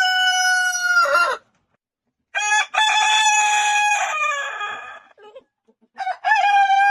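Roosters crowing, three long crows one after another: the end of one crow, a full crow starting a little over two seconds in, and another beginning near the end.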